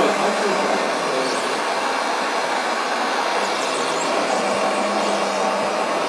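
Steady whirring hiss from a radio-controlled Mercedes-Benz Arocs model truck with a Joskin tank, driving on dirt while spraying water from the tank.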